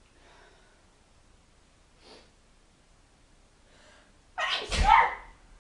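A person sneezing once, loudly and suddenly, about four and a half seconds in.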